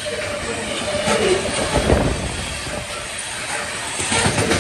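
Freight train of black ethanol tank cars rolling past close by, with the steel wheels clattering on the rails. The clatter swells twice, about a second in and again near the end, as trucks pass.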